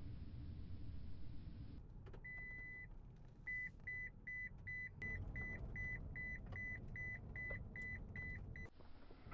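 A low rumble for the first couple of seconds, then electronic beeping at one high pitch: one longer beep, then short beeps about three times a second that stop suddenly near the end.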